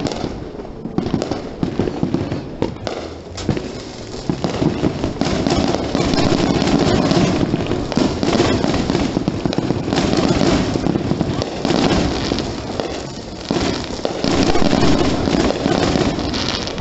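Fireworks and firecrackers going off around the neighbourhood: scattered pops and bangs at first, thickening after about five seconds into a dense, continuous crackle.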